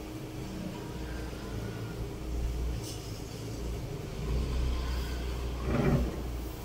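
A low rumble that swells and fades twice, with a brief rustle near the end as the saree fabric is handled.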